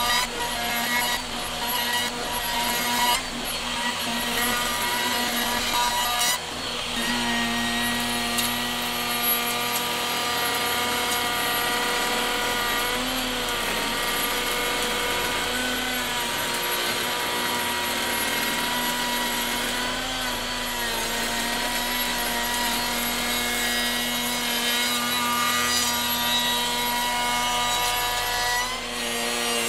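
Skil 14-amp router with a 2-inch flattening bit running steadily and cutting wood as it is slid across a board in a router sled, surfacing the board flat. A steady motor whine sits over the rasp of the bit in the wood, with small shifts in pitch as the cut loads and unloads the motor.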